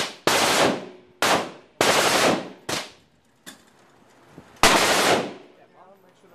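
Handgun shots fired one at a time at an irregular pace, about half a dozen, each trailing off in reverberation.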